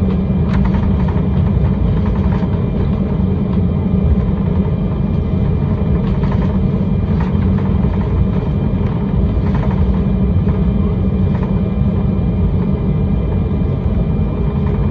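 Cabin noise inside an Embraer 195 jet taxiing on the ground: a steady low rumble with a faint steady whine from the GE CF34-10E turbofans at taxi power, and occasional light rattles.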